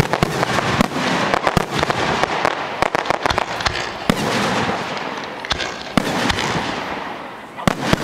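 Fireworks display: aerial shells launching and bursting in quick succession, with crackling between the bangs. The barrage thins out about halfway through, then picks up again with a few sharp, louder bangs near the end.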